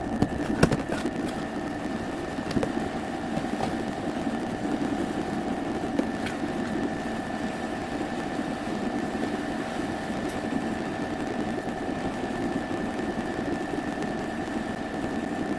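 Steady mechanical hum of a machine running, with a constant high whine over it and a few sharp clicks in the first several seconds.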